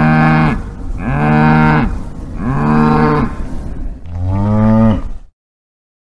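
Cow mooing four times in a row, each moo about a second long and arching up and down in pitch, the fourth one deeper. The sound cuts off suddenly a little after five seconds.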